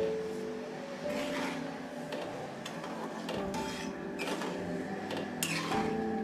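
A metal spatula scraping in short irregular strokes against a metal kadhai as an oily spice mixture is stirred, over instrumental background music with long held notes.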